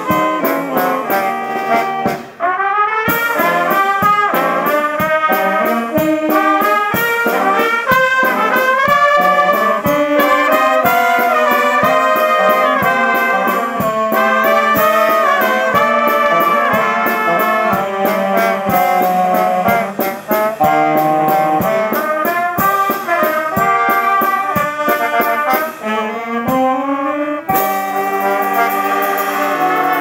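Brass band of saxophones, trumpets, trombones and low brass playing a tune with a steady beat. It breaks off briefly about two seconds in, and the low instruments play a rising run near the end.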